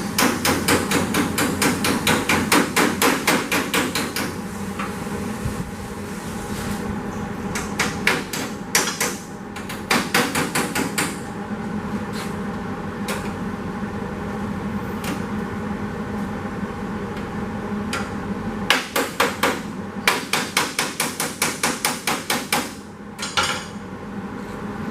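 Hammer blows on the sheet-steel side skirt of a 1931 Ford Model A, struck in quick runs of several blows a second. There are three runs, with pauses between them, over a steady background hum.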